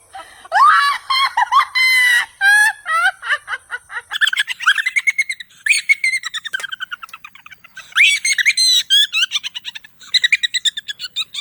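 Birds chirping and calling loudly: quick chirps and sweeping whistled notes, in several bursts with short gaps between them.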